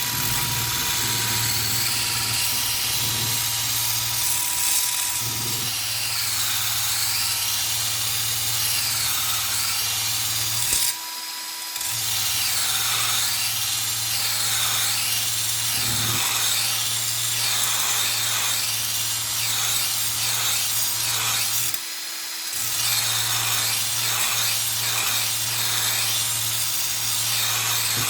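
Electric drill-driver running at high speed with a sharpening-stone bit, grinding along the steel edge of a lawnmower blade: a steady motor hum under a scraping grinding noise. It pauses briefly twice.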